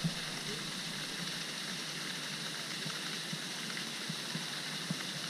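Water fountain spraying into a pond, a steady splashing hiss, with a few faint clicks over it.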